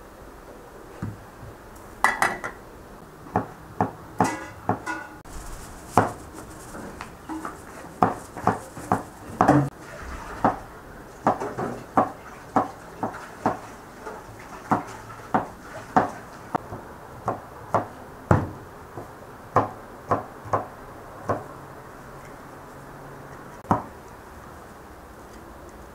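Kitchen knife chopping on a cutting board: sharp, irregular knocks about one a second or faster, stopping a couple of seconds before the end.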